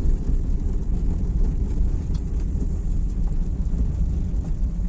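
Car cabin noise while driving: a steady low rumble of engine and tyres on a wet road, with a few faint ticks.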